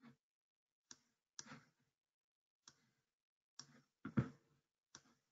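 Computer mouse buttons clicking: about eight short, separate clicks at an uneven pace, the loudest pair about four seconds in.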